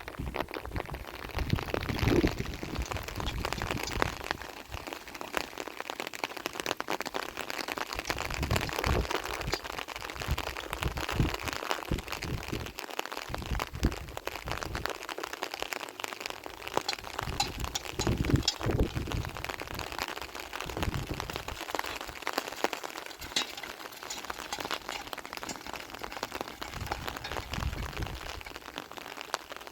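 Steady rain pattering on a surface, a dense crackle of drops throughout, with a few dull low thumps scattered through it.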